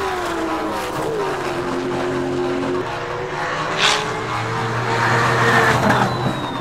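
Tuned twin-turbo Nissan GT-R racing past at speed, its engine note falling in pitch as it goes by. There is a short sharp hiss about four seconds in.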